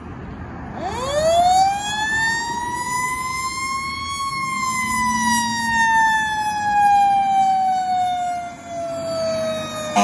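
A fire truck's Federal Q mechanical siren winds up sharply about a second in, peaks around four seconds, then slowly coasts down in pitch as the rotor spins down.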